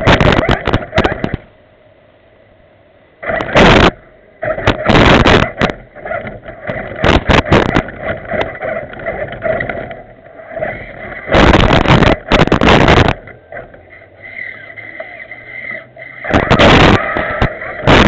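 Remote-control 4x4 truck's electric motor and drivetrain running in short, loud, irregular bursts as the throttle is blipped, heard close up through the body-mounted camera, harsh and distorted.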